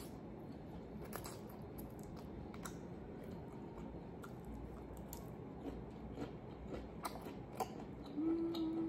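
Close-up chewing of a mouthful of brown rice noodles with beef and okra, with scattered small clicks, faint overall. A short steady hum sounds near the end.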